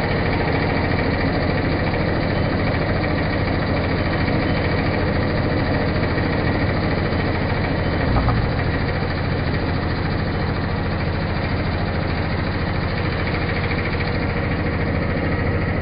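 Pillar drill running steadily, its motor and spindle giving a constant hum, with one brief low thump about halfway through.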